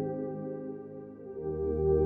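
Ambient background music: sustained synthesizer chords that fade down mid-way, then swell back in with a new low chord.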